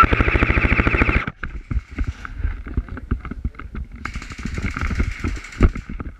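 Airsoft rifle firing a rapid full-auto burst of about a second, roughly twenty shots a second. A fainter, longer rattle of another burst follows a few seconds later, with scattered knocks of handling.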